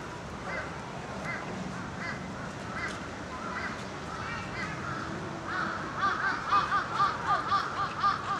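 Crows cawing: a few scattered caws, then from about halfway through a fast run of loud, repeated caws, roughly three a second.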